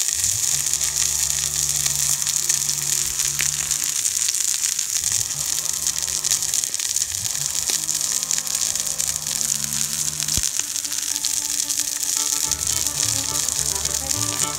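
Marbled beef steak sizzling steadily on a hot, freshly seasoned iron griddle plate, with background music playing alongside.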